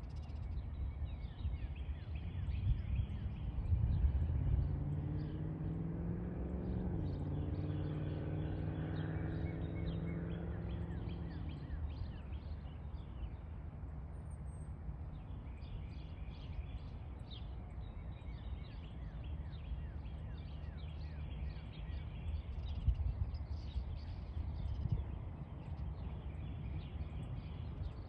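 Outdoor ambience: a steady low rumble with many short bird chirps. In the first half an engine-like tone rises, drops once, holds for a few seconds and fades away.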